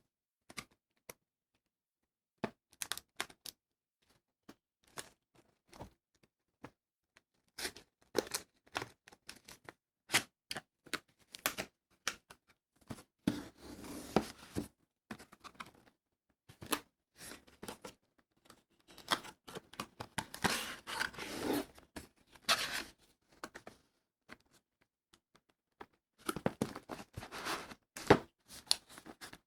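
Cardboard box and plastic wrapping being handled by hand: scattered clicks and taps, with three longer stretches of rustling and crinkling.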